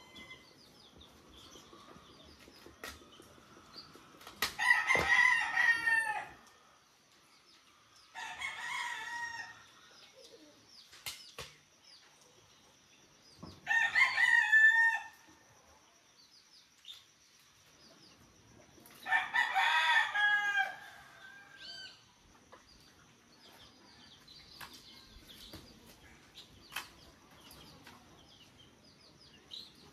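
Rooster crowing: four crows about one and a half to two seconds long, spaced several seconds apart. Scattered small clicks and a faint steady high-pitched tone lie underneath.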